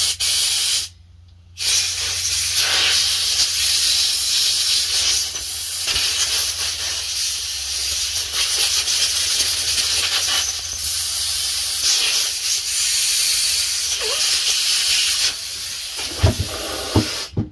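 Compressed air blown through a two-stroke outboard carburetor's passages to clear out the brake cleaner: a short blast, a break of about a second, then a long hiss that rises and falls in strength as the nozzle moves from hole to hole. A couple of knocks sound near the end.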